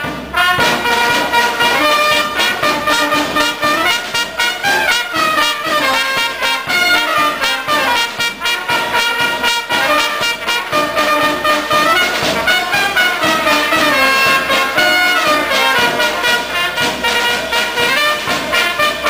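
Small street brass band playing: trumpets carry the melody over low brass, with a steady bass drum and cymbal beat.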